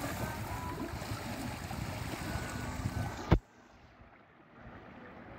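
Wind and sea-water noise aboard a small fishing boat, with a sharp knock a little over three seconds in; after it the sound drops to a quieter, duller hiss.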